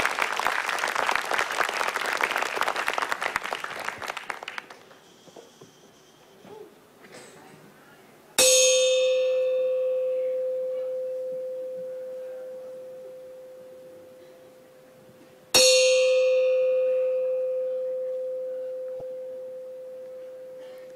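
Studio audience applause dying away over the first few seconds, then a bell-like chime struck twice, about seven seconds apart, each hit ringing out in one steady tone that fades slowly.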